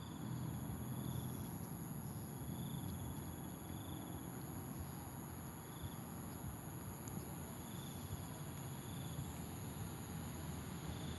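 Steady high-pitched insect chorus, with a shorter chirp repeating every second or two, over a low steady background noise.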